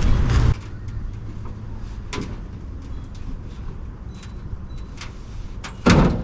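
Scattered light clicks and taps of a 1976 Chevy K10's steel hood being worked on its hinges, then one heavy thud near the end.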